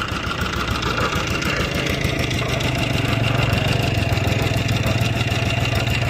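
A construction machine's engine running steadily at constant speed, with a fast, even chug and a faint steady high whine.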